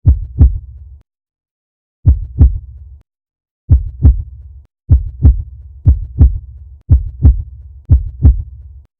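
Heartbeat sound effect: double lub-dub thumps, each followed by a brief low hum that stops abruptly. The beats start about two seconds apart and speed up to about one a second.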